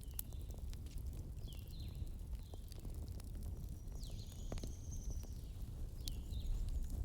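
Wood fire in a fireplace crackling, with scattered sharp pops over a low rumble of flames. Several short high whistles that dip in pitch come and go among the pops.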